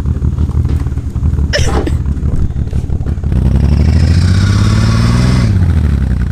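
1990 BMW 525i's straight-six engine running hard, revs climbing about three seconds in and held for a couple of seconds with a hiss over the top, then dropping back. A companion takes the engine's behaviour for a vacuum leak. A brief high squeal sounds about a second and a half in.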